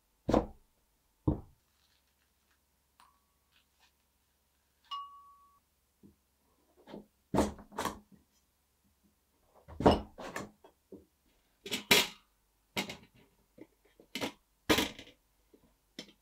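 Kitchen knife cutting through a kabocha squash and knocking down onto a wooden cutting board: a series of sharp knocks, some in quick clusters, with two short metallic rings between the first cuts.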